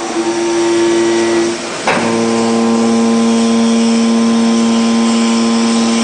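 Hydraulic power unit of a metal-chip baler running with a steady whine. About two seconds in the tone briefly dips with a knock, then settles on a new pitch as the ram moves in the press chamber.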